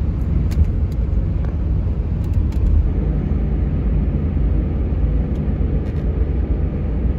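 Steady low road and engine rumble inside a moving car's cabin, with a few faint ticks in the first few seconds.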